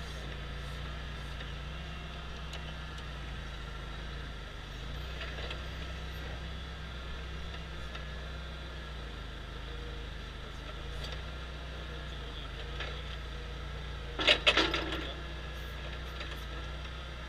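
Forklift running with a steady low hum. About fourteen seconds in there is a brief loud burst of rattling clatter.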